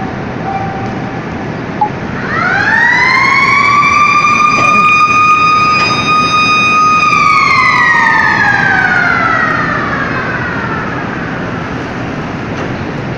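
Motor-driven warning siren that winds up to a steady high wail about two seconds in, holds for about five seconds, then winds slowly down, over the steady noise of plant machinery.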